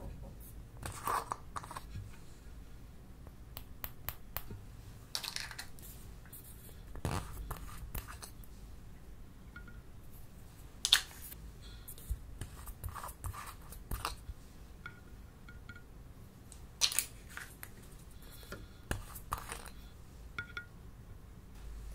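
Makeup being crumbled by hand into an empty glass dish: scattered crunches and scrapes with light taps and clicks on the glass, at irregular intervals, the sharpest clicks about eleven and seventeen seconds in.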